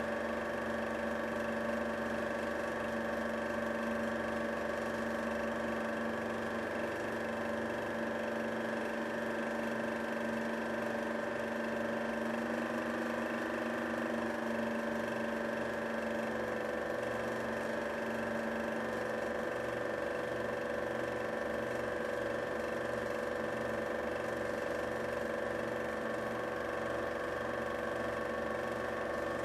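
Home-movie film projector running: a steady motor hum with a fast, even mechanical chatter of the film transport that does not change.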